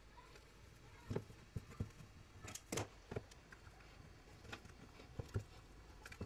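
Faint, scattered clicks and light knocks of hand work: a crimping tool being handled and set down on the mat, and crimped ring lugs on red and black battery leads fitted against a small plastic battery case.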